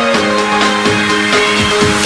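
Electronic background music with sustained synth notes over a steady beat.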